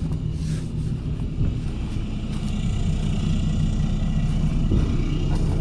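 An 8,000-watt Onan generator running with a steady low drone.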